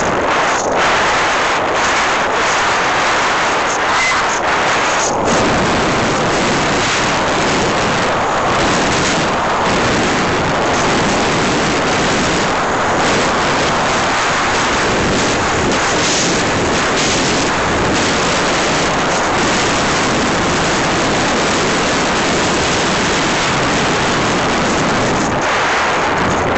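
Loud, steady rush of wind buffeting the microphone of a camera mounted on an aircraft in flight.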